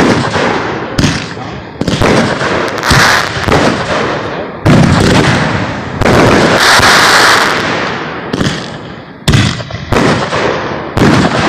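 Aerial fireworks firing in quick succession, likely a multi-shot cake: a string of sharp launch reports and bursts at irregular intervals of about a second, each trailing off. A steady hiss of about two seconds comes in the middle.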